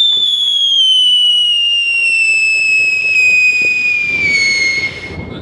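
Whistling firework giving one long, loud whistle that slowly falls in pitch and stops about five seconds in.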